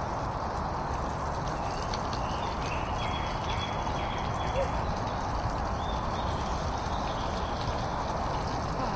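Portable camping gas stove burner running steadily under a frying pan, with a faint crackle of frying on top.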